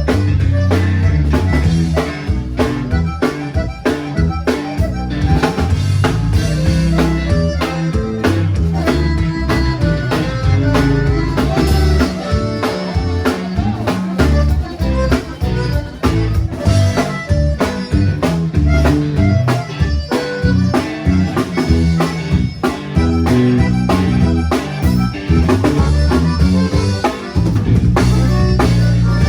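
Live conjunto music: a button accordion playing the melody over bajo sexto, bass and a drum kit keeping a steady dance beat.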